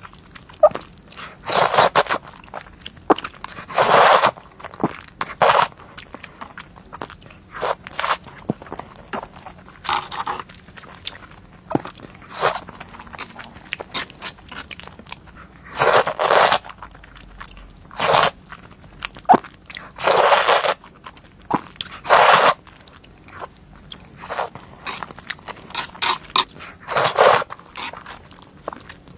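Crunchy food being bitten and chewed: irregular loud crunches every second or two, with quieter chewing crackle between.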